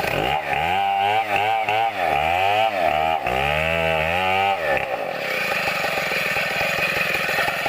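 Two-stroke chainsaw cutting into a coconut palm trunk. The engine runs at high revs, its pitch dipping and recovering about four times as the chain is loaded in the cut, then carries on more evenly for the last few seconds.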